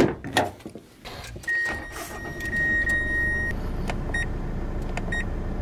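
A car door is opened and shut with a couple of clunks. A steady warning chime sounds for about two seconds, then the four-wheel drive's engine starts and settles into a steady idle. Two short chimes come near the end.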